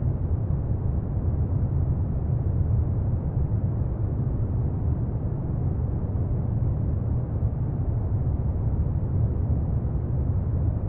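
Steady deep noise ambience, heaviest in the bass and without any tune or pitched notes: a brown-noise-like low rumble with no oud audible.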